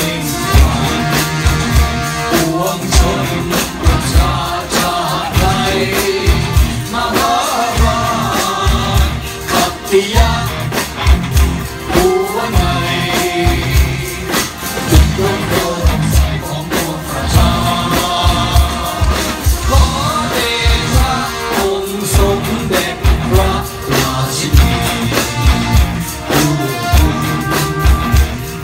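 Live band music driven by many drum kits played together, with frequent drum hits and cymbals, and singing over the top.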